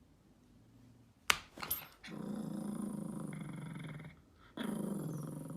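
A sharp knock, then a dog growling in two long growls with a short pause between them.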